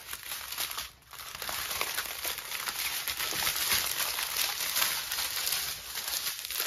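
Small plastic bags of diamond-painting drills crinkling as they are handled and spread out, a dense crackle with a brief lull about a second in.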